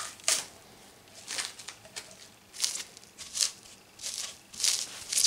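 Clear plastic film crinkling and scraping as a kitten paws and rubs at a sisal-rope scratching post that is still wrapped in it. The sound comes as a string of short, sharp rustles, roughly one every second or less.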